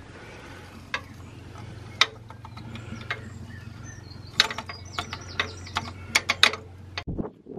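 A metal fire iron knocking and scraping against the firehole and grate of a miniature steam locomotive's firebox as the fire is stirred and fed: sharp metallic clicks and knocks, coming thick and fast with a quick rattle in the second half, over a steady low hum.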